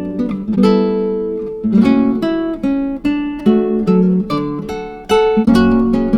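Background music: acoustic guitar strummed and plucked, with chords changing about once a second.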